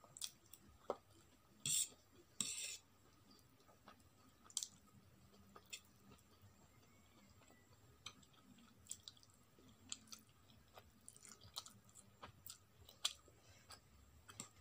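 Close-up mouth sounds of someone eating Maggi instant noodles: quiet chewing, with two short hissy slurps about two seconds in and scattered light clicks.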